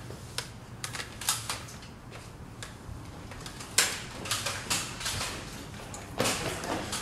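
Irregular sharp clicks and knocks, about a dozen, unevenly spaced, the loudest nearly four seconds in, followed by a longer, noisier burst about six seconds in.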